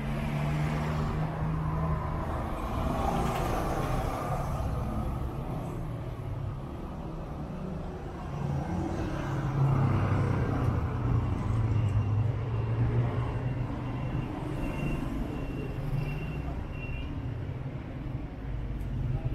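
City street traffic: engines of passing cars and heavier vehicles running, a steady low hum under road noise, with a thin high whine for a couple of seconds in the second half.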